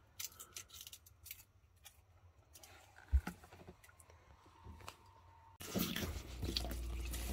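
A kitchen knife cutting garlic cloves coarsely on a board: a few sparse crisp clicks and a knock about three seconds in. Near the end the tap is suddenly turned on and water runs into a stainless-steel sink over pieces of oxtail, rinsing them.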